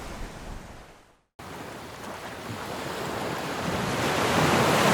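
Sea surf on a rocky shore: the wash fades out, cuts off briefly about a second in, then a wave swells in, growing steadily louder toward the end.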